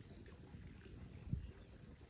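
Pot of water with rice balls boiling over a wood fire, a faint low bubbling rumble, with a single dull thump about a second and a half in.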